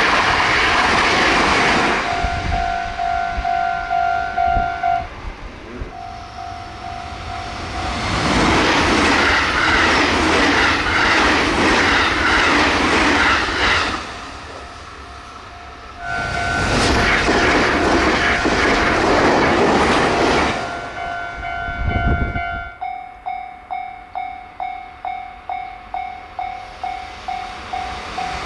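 Trains passing a level crossing at high speed, with a loud rush of wheels and clatter on the rail, while the crossing's electronic warning bell dings over and over. Near the end the trains have gone and only the warning bell is left, ringing about twice a second.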